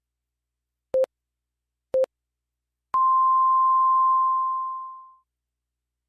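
Radio time signal: two short low beeps a second apart, then a long higher tone marking the hour, which fades out after about two seconds.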